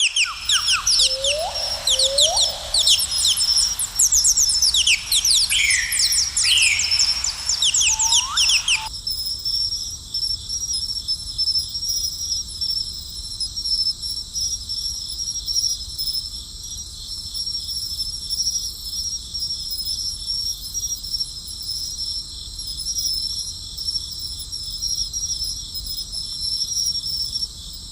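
Birds calling in quick chirps and short rising notes over a steady, high-pitched insect chorus. About nine seconds in, the birdsong cuts off abruptly and only the insects' steady pulsing trill goes on.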